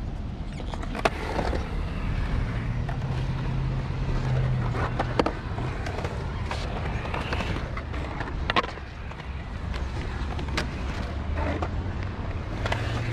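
Skateboard wheels rolling over a park surface with a steady low rumble, broken by a few sharp clacks of the board.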